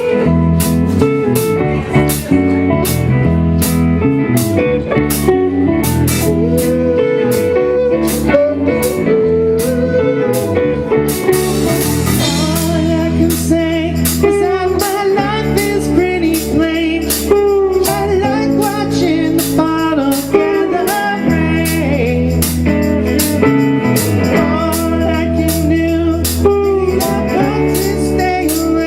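Live rock band playing with guitars over a drum kit keeping a steady beat.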